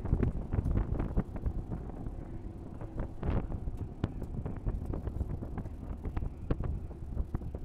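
Onboard sound of a Mazda MX-5 race car at speed: engine and road noise with wind buffeting the microphone and frequent short rattles and knocks from the stripped cabin.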